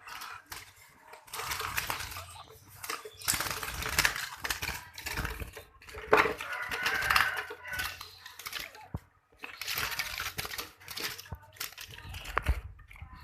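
Water splashing in a bucket as a wild cucak keling bird is dipped and flaps its wings. It comes in several noisy bursts with short pauses between them.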